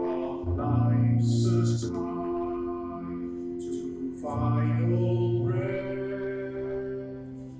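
Worship music: voices singing over sustained chords, with a deep bass note swelling in twice.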